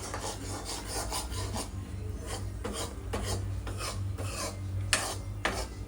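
Metal ladle scraping round the bottom of a kadhai, stirring gram flour roasting in ghee, in repeated scraping strokes a few times a second, with a steady low hum underneath.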